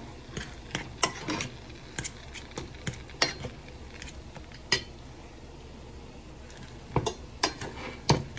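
Metal fork mashing potatoes in a stainless steel saucepan, clinking and scraping against the pot in irregular strokes, with a lull of about two seconds past the middle before a quicker run of clinks near the end.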